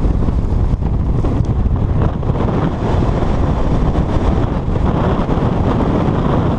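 Extremely strong wind blasting across the microphone: a loud, continuous low rumble that swells and dips with the gusts.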